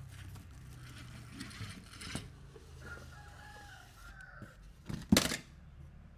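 A rooster crowing once, faintly: one drawn-out crow about three seconds in that drops in pitch at its end. A little after five seconds a single sharp knock is the loudest sound.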